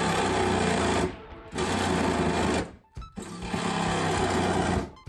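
Cordless reciprocating saw (Sawzall) cutting through a car's sheet-metal fender, running in three bursts with short pauses between as it works around a tight curve.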